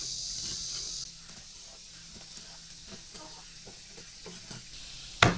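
Cleaver slicing a silver carp fillet on a wooden chopping board: faint, irregular soft taps of the blade through the fish, then one sharp knock of the knife on the board near the end.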